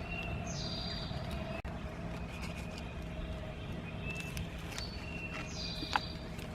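Songbirds chirping in short repeated calls, two of them falling in pitch, over a steady low rumble of distant traffic, with one sharp click near the end.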